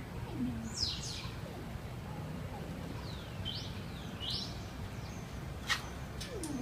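A few short, high bird chirps over a steady low background hum, with a single sharp click a little before the end.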